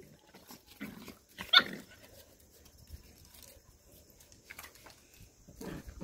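Dogs at play, with one short, sharp bark about a second and a half in and a few fainter, scattered sounds around it.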